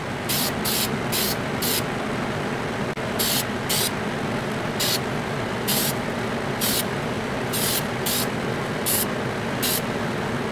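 Aerosol spray can of gray primer giving about a dozen short, quick hissing sprays, over a steady background noise.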